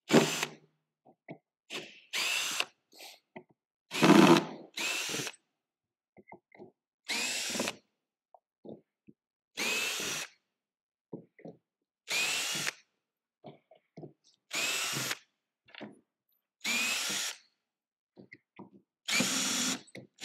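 Cordless drill backing screws out of a wooden crate lid: short bursts of the motor spinning up, one every two to three seconds, with small clicks of handling in between.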